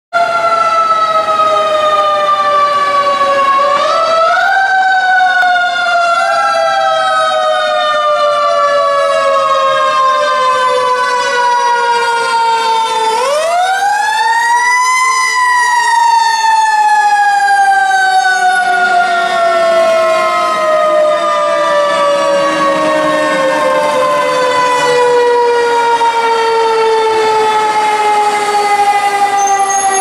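Fire engine's siren wailing loudly, its pitch sliding slowly down, briefly rising twice about four and six seconds in, then winding up sharply about thirteen seconds in and falling slowly away again.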